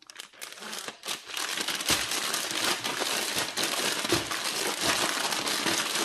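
Plastic zipper storage bag crinkling and rustling steadily as it is handled and shaken with chicken thighs and dry seasoning inside, starting about a second in.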